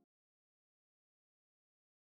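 Silence: the soundtrack is empty.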